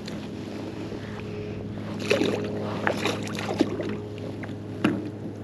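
Water lapping and splashing against a plastic fishing kayak's hull, with wind on the microphone, a steady low hum underneath, and small clicks and a sharp knock near the end.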